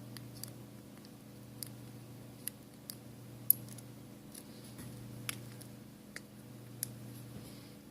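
Light, sharp clicks and taps at irregular intervals, about nine of them, the loudest about three and a half seconds in, as the newly fitted iPhone 5s screen is handled and tapped to test it, over a steady low hum.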